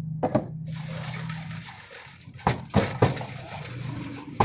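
Fried potato chips being tossed in a stainless steel bowl to coat them with seasoning: a steady rustle broken by sharp metallic knocks, three in quick succession in the middle and another near the end. A low steady hum runs under the first second and a half.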